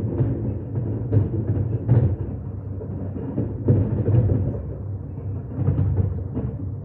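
Fireworks bursting over the harbour: a continuous low rumble broken by repeated irregular booms and cracks, with the loudest about two seconds in and near four seconds.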